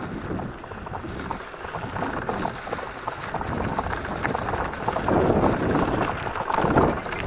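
Electric mountain bike rolling over a rough dirt and gravel track: tyres crunching, the bike and camera mount rattling over bumps, and wind buffeting the microphone. It gets louder from about five seconds in, as the track turns rockier.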